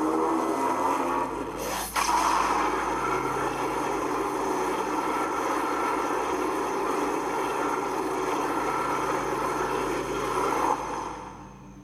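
Godzilla roar sound effect, mixed from MonsterVerse, Millennium and Heisei Godzilla roars: a long, loud, rasping roar. One roar ends, a new one starts sharply about two seconds in, holds for about nine seconds and then fades out near the end.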